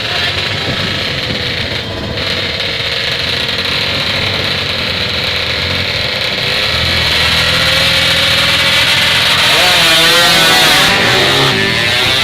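Drag-racing motorcycle engine running at a steady idle, growing louder partway through; near the end the revs are blipped up and down.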